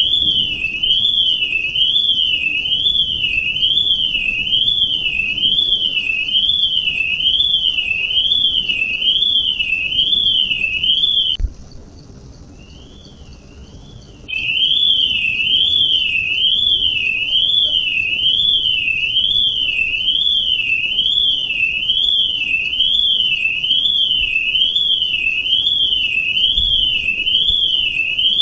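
Electronic alarm sounding a high warbling tone that sweeps up and down about one and a half times a second. About eleven seconds in it drops to a faint level for around three seconds, then comes back at full strength.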